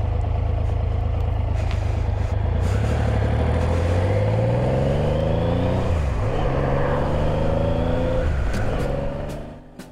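Triumph Legend 900 three-cylinder motorcycle engine accelerating, its pitch climbing steadily and then dropping sharply at a gear change about six seconds in. It climbs again through the next gear before fading near the end.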